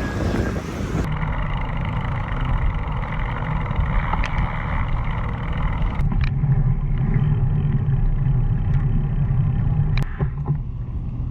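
A motor vehicle running with a steady low rumble, with a couple of brief clicks.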